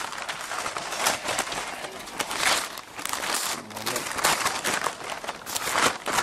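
Paper pages being leafed through, a run of irregular rustles and crinkles as a Bible passage is looked up.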